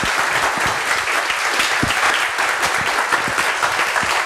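Audience applauding steadily, many people clapping at once at the close of a talk.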